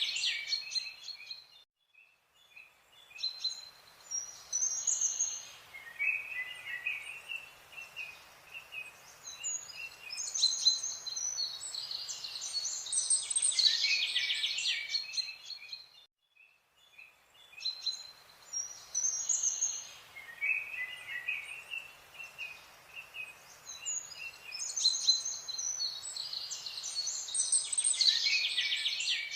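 Wild birdsong: several birds chirping and trilling over a light background hiss. The same passage of birdsong repeats about halfway through.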